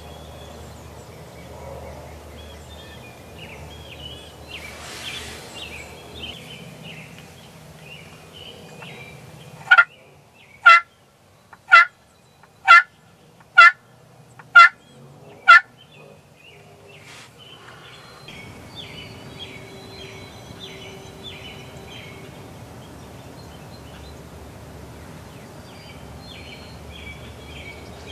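Hand-held friction pot turkey call worked with a wooden striker: seven sharp calling notes, about one a second, the loudest sound here. Faint bird calls are heard before and after the series.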